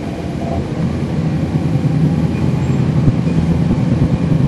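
The 2011 NABI 40-SFW transit bus running, heard from on board: its Cummins ISL9 diesel makes a steady low drone that gets a little louder after about a second.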